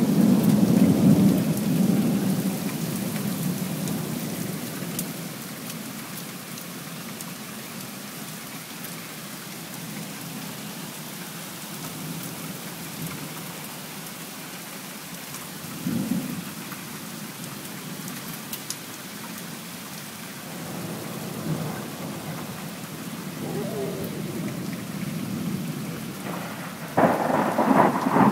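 Thunderstorm: steady heavy rain with rolling thunder. A long rumble fades out over the first few seconds, a short one comes about halfway, and a louder, sharper clap breaks about a second before the end.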